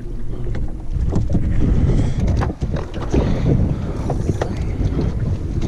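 Wind buffeting the microphone as a steady low rumble, with a few short knocks on the boat while a landing net is brought aboard.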